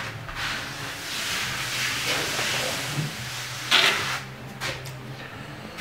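Darby scraping along wet earth plaster on a straw-bale wall as it is pulled to level a low spot: one long stroke of about two and a half seconds, then a short sharper scrape near four seconds in.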